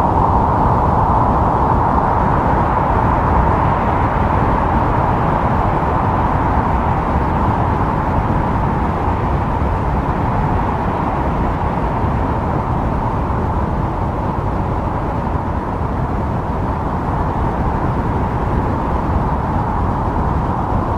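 Wind blowing steadily: a continuous rushing noise with a hollow whooshing tone and a low rumble, easing slightly through the middle.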